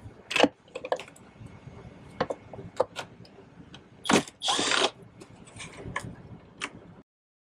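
Scattered clicks and rattles of parts being handled. About four seconds in, a cordless power tool whirs twice: a short burst, then a run of about half a second, as it drives a bolt out at the headlight.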